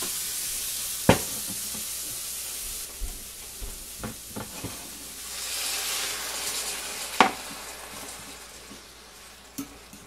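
A skillet of vegetables sizzling and hissing as a little added water steams off, the hiss fading and then briefly swelling again. A utensil clacks sharply against the pan a few times, loudest about a second in and again about seven seconds in.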